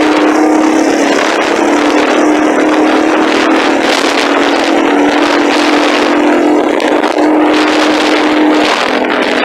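Loud engine exhaust running at steady, held revs, its note staying at one pitch.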